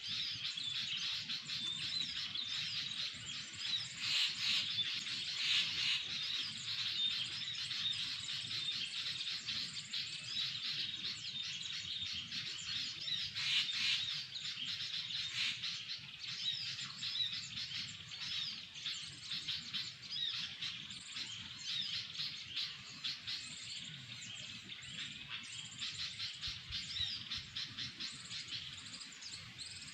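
Birdsong, murai papua (saeran eod): a string of quick chirps and whistles running on without pause, with no breaks in the song.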